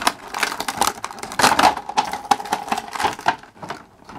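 Clear plastic toy packaging crinkling and crackling in the hands as it is worked open, a run of irregular crinkles and clicks.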